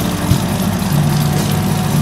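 A hot rod's engine running steadily at idle, its low note stepping up about a second in.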